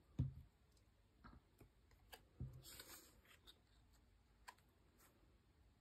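Near silence, with a few faint ticks and taps of paper cardstock being handled as a stamped paper circle is lined up and pressed onto a die-cut circle.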